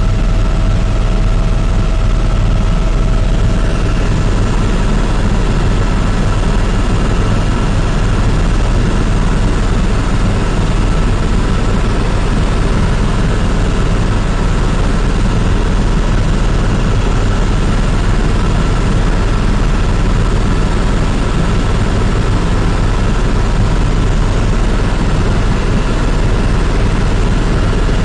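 Helicopter in flight: steady, loud engine and rotor noise with a deep low hum and several constant whining tones.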